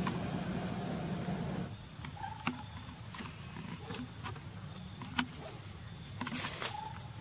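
Outdoor ambience: a low rushing noise that cuts off about one and a half seconds in, then a steady high-pitched whine with a few sharp clicks and two brief faint chirps.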